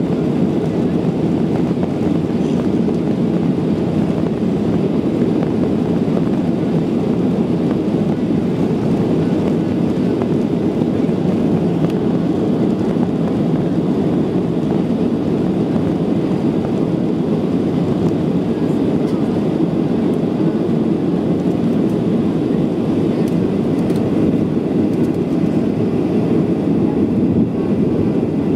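Cabin noise of a Boeing 737-900 taking off, heard from a window seat over the wing: its CFM56-7B turbofans at takeoff thrust, with the rush of the takeoff roll carrying on into the initial climb. It is a loud, steady, low noise that holds constant throughout.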